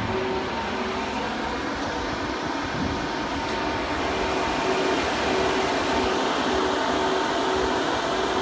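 Rencool BCA-6 24 V DC electric air-conditioning unit running with the truck's diesel engine shut down: a steady whir of its electric compressor and fans, with a faint hum that comes and goes, growing a little louder toward the end.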